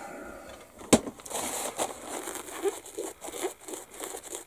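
Crumpled paper towels rustling and rubbing as they are handled and wiped, after a single sharp click about a second in.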